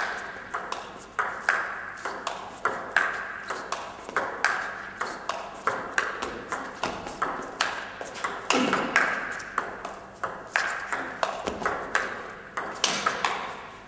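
Table tennis rally: the ball clicks off the rackets and the table in a steady run of sharp pings, about three or four a second. One racket is faced with anti-topspin rubber.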